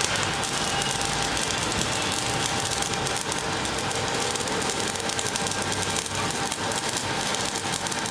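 Electric arc welding a flat-position fillet weld: a steady crackling hiss from the arc as a bead is run, unbroken throughout.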